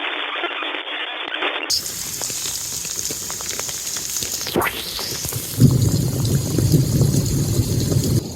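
Storm water running and gushing through a flooded garden. It grows fuller, deeper and louder about five and a half seconds in.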